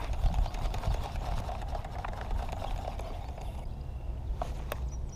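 A baitcasting reel being cranked gives a faint rapid ticking over a steady low rumble. Two sharper clicks come about four and a half seconds in.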